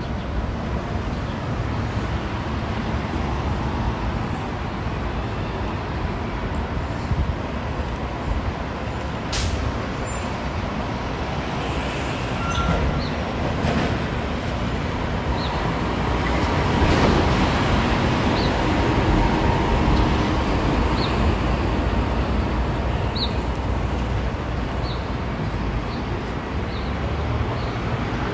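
Steady city road-traffic noise, a low rumble that swells for a few seconds past the middle.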